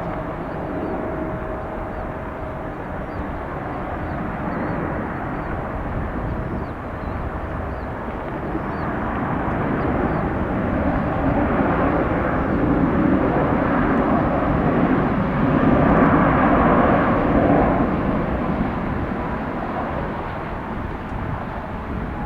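Jet airliner engines heard outdoors, a steady rush that builds to its loudest about two-thirds of the way through and then fades.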